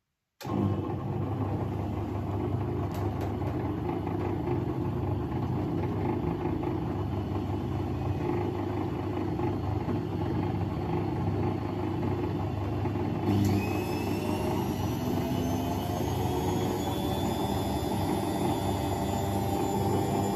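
Arçelik 4120 S front-loading washing machine on a spin cycle: a steady rumble of the drum and motor that starts abruptly. From about two-thirds of the way through, the motor's whine rises in pitch as the drum speeds up.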